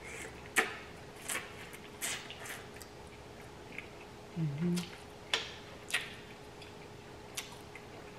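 A person eating shrimp from a seafood boil: wet mouth clicks and lip smacks while chewing, with a short hummed "mm" about halfway through.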